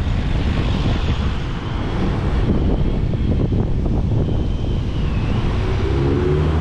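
Wind buffeting the microphone, with a BMW M3's V8 engine running low underneath as the car creeps toward the trailer; the engine's steady note comes through more clearly near the end.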